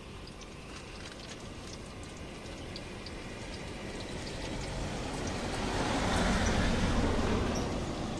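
Battered fritters frying in a wok of hot oil, a steady sizzle with small crackles. A passing vehicle swells the noise from about five seconds in and fades near the end.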